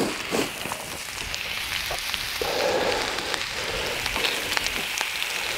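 Bacon, steak and vegetables sizzling on a hot gas barbecue grill plate: a steady crackling hiss full of small pops.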